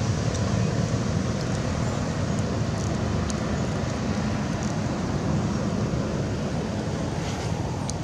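Steady low outdoor rumble with a few faint, short ticks scattered through it.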